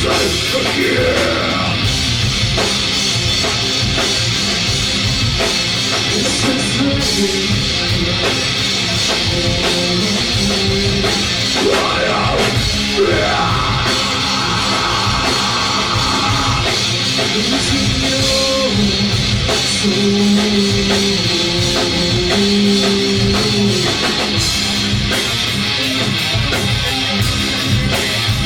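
Live rock band playing loudly, with drum kit and electric guitar. Sweeping pitch slides come about halfway through.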